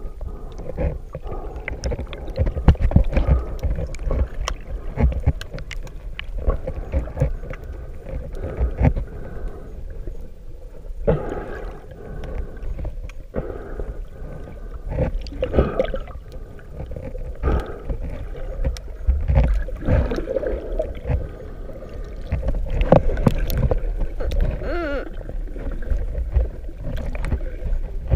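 Water heard through a camera held underwater while snorkeling: a muffled low rumble of moving water with irregular knocks, clicks and bubbling, and a wavering gurgle near the end.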